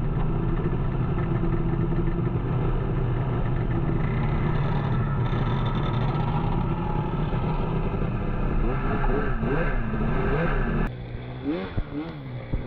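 Snowmobile engine running steadily while riding, its pitch wavering up and down near the end before the sound drops off suddenly.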